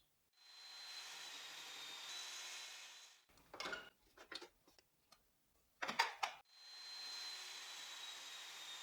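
Power saw running through two rip cuts in a board, heard faintly: a steady whine with a high tone that sags slightly during the second cut. A few short knocks of wood being handled fall between the two cuts.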